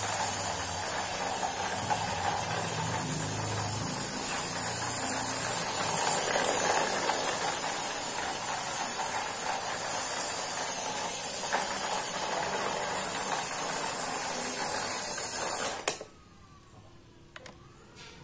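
Multi-axle RC truck's electric motor and gearbox running, a steady hissing whir with a faint ratcheting gear texture as it drives across concrete. About sixteen seconds in, the sound cuts off suddenly, leaving a much quieter stretch with faint gliding tones.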